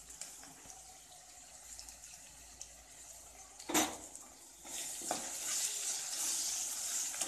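Chopped onions, green chillies and curry leaves frying in oil in an aluminium kadai, sizzling faintly at first. There is one sharp knock a little under four seconds in. As a perforated ladle stirs the mix, the sizzle grows louder and steady.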